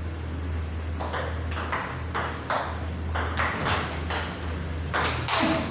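Table tennis rally: the ball clicking sharply off the paddles and the table in quick alternation, about two hits a second, starting about a second in, over a steady low hum.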